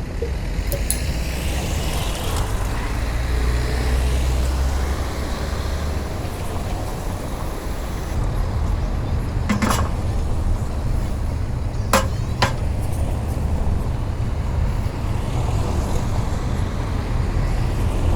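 Steady low outdoor rumble with a faint hiss over it, broken by a few sharp clicks about halfway through.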